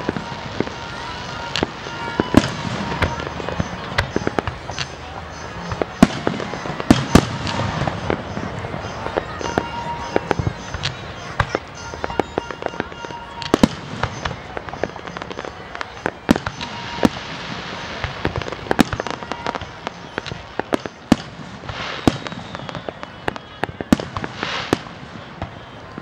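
Fireworks display: aerial shells bursting in a continuous, irregular run of sharp bangs, several close together at times.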